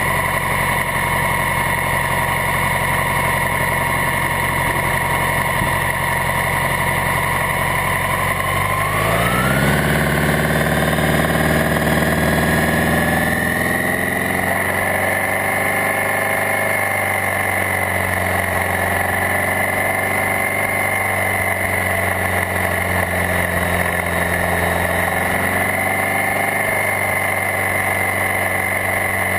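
Maverick flying car's rear-mounted engine idling, then rising in pitch as it pulls away about nine seconds in, and running steadily at road speed after that.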